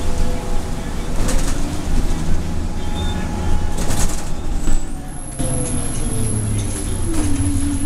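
Cabin noise of a 2012 Nova LFS city bus under way: steady engine and road rumble. A drivetrain whine falls in pitch as the bus slows, then settles on a lower steady tone near the end.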